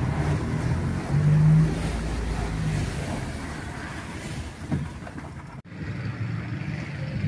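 A car engine running steadily with road and wind noise, as heard while driving. There is a louder swell about a second in, and the sound breaks off for an instant about two-thirds of the way through before carrying on.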